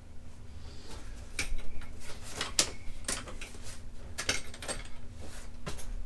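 Small wrench clicking and scraping against the flame sensor's mounting screw and the furnace's sheet-metal burner box, in irregular metallic clinks, as a tight screw is worked loose.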